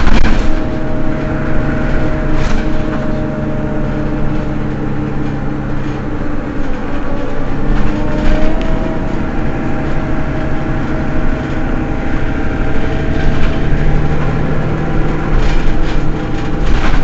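Mercedes-Benz Citaro city bus engine idling steadily at a stop: a low hum with a steady whine over it, and a few brief clacks.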